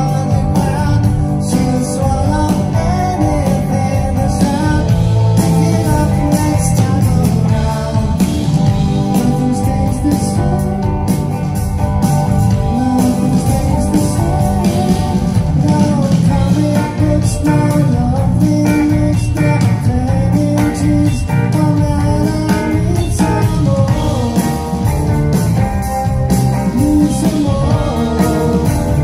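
Live rock band playing a song, with a male lead vocal over electric guitar, drums, bass and keyboards, heard through the hall's PA from the audience.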